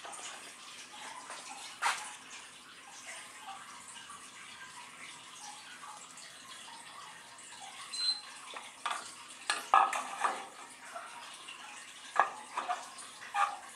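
Water in a stainless steel hydrographic dip tank running and lapping steadily as a printing film is laid onto its surface. One sharp knock about two seconds in, then several knocks and splashes in the second half as hands work the film and the tank edge.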